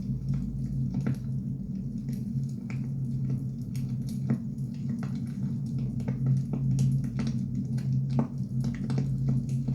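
Burning firewood crackling: irregular sharp pops and snaps over a steady low rumble.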